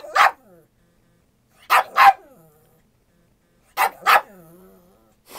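Pug barking at its owner for its lunch, in quick pairs of barks about every two seconds, each bark trailing off in a falling tone.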